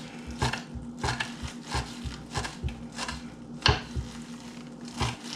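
Kitchen knife chopping green onions on a wooden cutting board: short sharp taps of the blade through onion onto wood, roughly two a second, with one harder knock a little past halfway.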